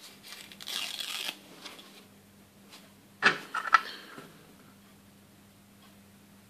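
A paper-backed sticker is peeled off its sheet with a short dry rustle about a second in. This is followed by two sharp clicks, about half a second apart, as the small plastic toy bed is handled.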